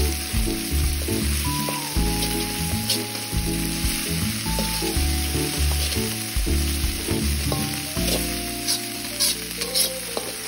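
Red spice paste sizzling in hot oil in a metal wok while a slotted metal spatula stirs and scrapes it against the pan, with a few sharp scrapes near the end. Background music with a steady beat plays underneath.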